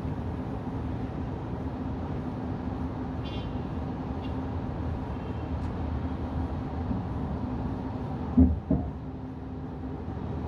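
Steady road and engine noise of a car driving in the rain, heard from inside the car, with a constant low hum. About eight seconds in come two heavy thumps a fraction of a second apart.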